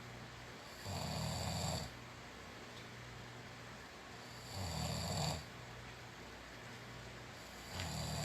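A sleeping person snoring: three snores about three and a half seconds apart, each lasting about a second, the last one near the end.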